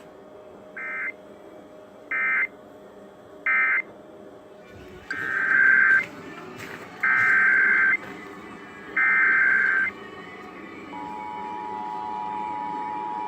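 Emergency Alert System data bursts: three short warbling SAME bursts, then three longer ones about a second each, followed about eleven seconds in by the steady two-tone EAS attention signal beginning, over a faint broadcast hum. This is the start of an EAS Required Monthly Test on broadcast radio.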